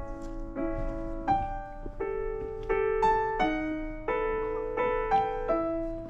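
Background music: a piano playing a gentle melody, one note or chord after another about every half second.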